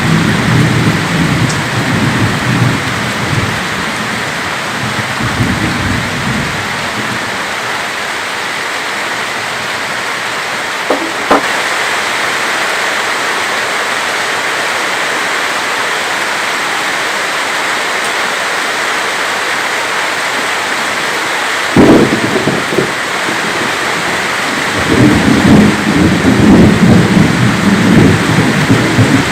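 Heavy rain falling steadily during a severe thunderstorm. Thunder rumbles at first, sharp cracks come about a third of the way in and again about two-thirds of the way in, and a long rolling peal of thunder builds near the end.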